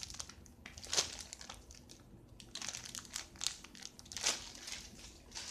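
Clear plastic packaging of a squishy crinkling as it is handled, in short scattered bursts.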